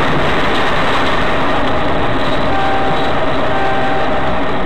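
Loud, steady rumbling vehicle noise. About halfway through, a steady high tone comes in, breaks off and comes back.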